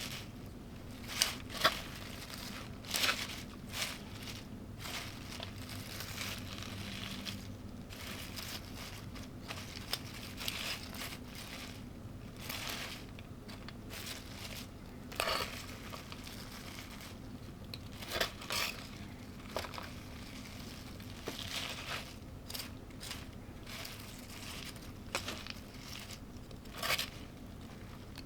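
Irregular sharp clicks, taps and crackles of food and kitchenware being handled for a meal, over a steady low hum. The loudest are a quick pair about a second and a half in.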